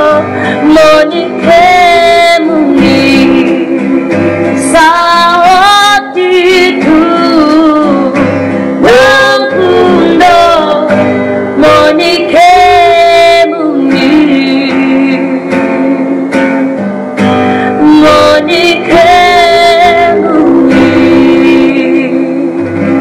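A woman singing a song over steady guitar accompaniment, her voice carried in long held phrases.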